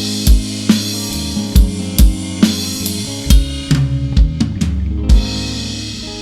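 Rock band playing live: a drum kit beat with bass and guitar chords, then a quick drum fill about four seconds in and a last big hit, leaving the final chord ringing and slowly fading as the song ends.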